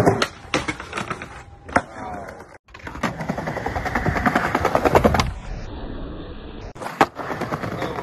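Skateboard wheels rolling fast over stone tiles, a rapid clatter as they cross the joints, with one sharp clack about seven seconds in.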